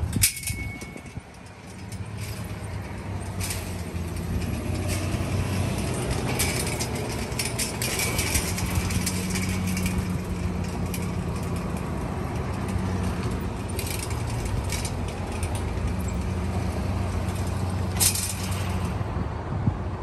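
Elite automatic gate operator running: its electric motor hums steadily as it drives a metal mesh gate, with rattling and clicking from the gate hardware. The motor starts about two seconds in and runs until near the end, with a sharp clank a little before it stops.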